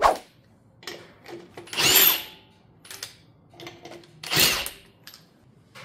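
A power tool spinning off wheel nuts in two short bursts, about two seconds in and again at about four and a half seconds, its pitch sweeping as it runs up and winds down. A knock at the very start and a few light clicks fall between the bursts.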